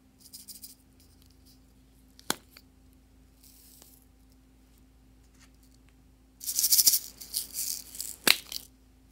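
Small plastic beads rattling as they are shaken out of a small plastic container into a glass bowl. The loudest part is a dense rattle of about two seconds near the end, with a brief rattle just after the start and a single sharp click a little over two seconds in.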